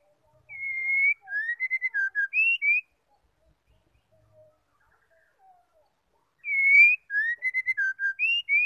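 Female white-rumped shama (murai batu) singing two matching whistled phrases, a few seconds apart. Each phrase opens with a clear held whistle of about half a second, then runs quickly through about eight short rising and falling notes.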